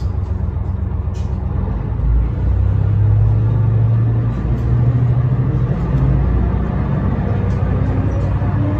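An ET122 diesel railcar's engine, heard from the driver's cab, running at idle, then revving up about two seconds in as the train pulls away from the platform. A rising whine comes in near the end as it gathers speed.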